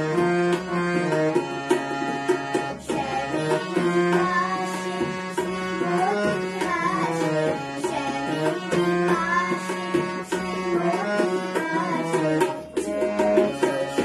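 Harmonium playing a Bengali song melody with tabla accompaniment, the drum strokes keeping a steady rhythm under the held reed notes. A girl's voice sings the melody over part of it.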